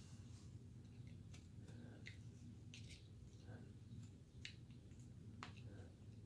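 Faint, scattered small clicks and scrapes of a carving knife's tip cutting into basswood, over near-silent room tone.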